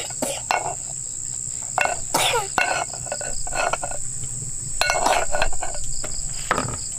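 Steady high-pitched insect drone, like crickets or cicadas, with scattered short knocks and clicks and a few brief falling calls.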